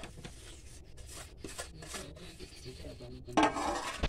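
A flat metal spatula scraping and rubbing against a stainless steel bowl in irregular strokes as it spreads a dry, ground mixture over flour. A louder burst of noise comes near the end.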